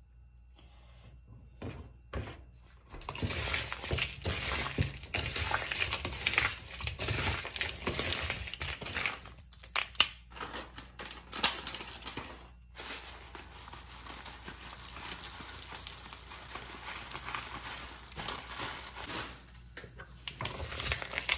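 Dry chatpate ingredients (crushed instant noodles, peanuts and puffed rice) being crumbled and dropped by hand into a plastic mixing bowl: a dense crackle of small clicks and rustles starting about three seconds in, with a few sharper clicks.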